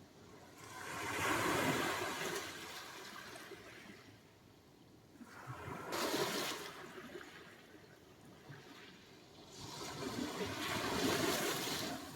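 Sea surf: three waves break in turn, about four to five seconds apart. Each swells into a rushing hiss and fades away.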